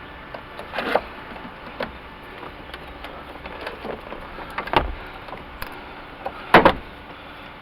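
Scattered knocks and clicks as a battery cable end is worked back onto a side-post car battery terminal by hand, the loudest knock near the end.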